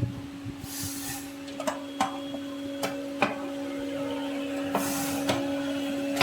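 Plastic clicks and rattles of a smoke gun's casing being handled and fitted together, with two short rustles, over a steady electrical hum.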